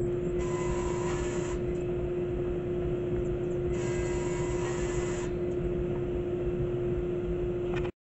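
Benchtop table saw running with a steady whine, its blade cutting through a wooden board twice, each cut lasting a second or so. The sound cuts off suddenly near the end.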